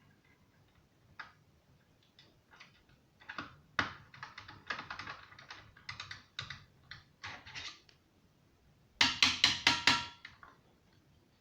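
Irregular small clicks and taps of hard parts being handled, then a quick run of about six sharp, louder clicks near the end.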